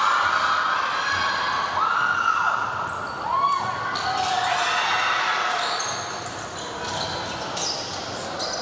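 Basketball game sounds on a hardwood gym floor: sneakers squeaking and a ball bouncing as players run the court, with some voices calling out.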